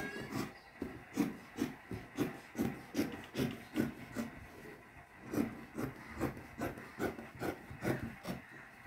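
Fabric scissors cutting through white cloth, a steady run of snips about two to three a second.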